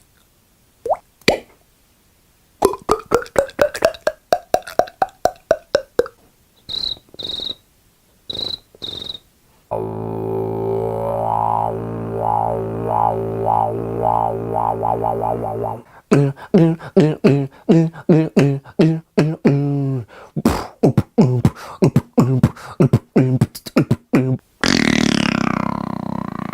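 A man making a string of mouth sound effects, beatbox-style. It starts with drip-like clicks, then fast rattling pulses whose pitch rises and falls, then short high chirps. From about ten seconds in comes a long steady drone with a pulsing tone, then more fast rattling, and near the end a wavering, hissy sound.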